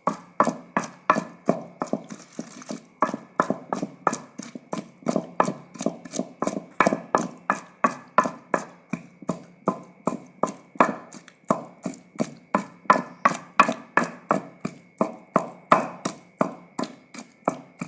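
Pestle pounding a wet onion and tomato chutney in a kunda, a traditional mortar, with steady strikes about three a second, each with a short ring.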